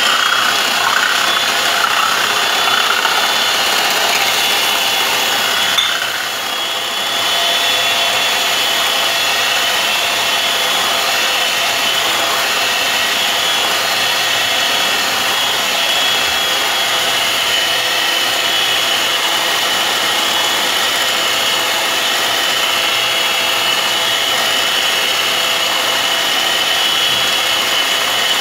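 Electric hand mixer running steadily, its beaters whisking eggs and sugar in a ceramic bowl, with a brief dip in level about six seconds in.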